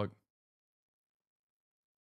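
A man's voice ends a word right at the start, then dead silence.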